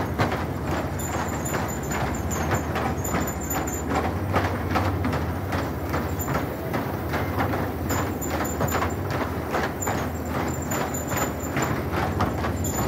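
A horse walking on an inclined wooden horse treadmill: a steady, regular run of hoof falls knocking on the wooden slats, over a steady low rumble.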